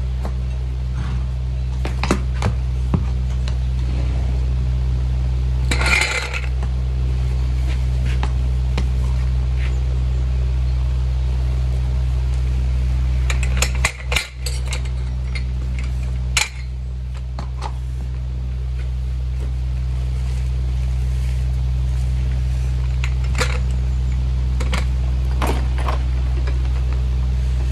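Metal farrier's tools clinking and knocking now and then against a metal tool cart and hoof stand, a few scattered sharp clinks over a steady low hum.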